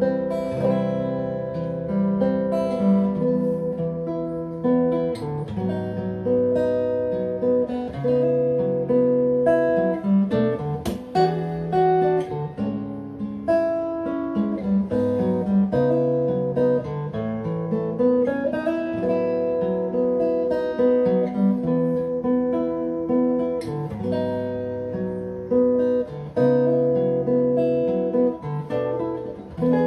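Solo acoustic guitar playing an instrumental piece, with plucked melody notes ringing over bass notes.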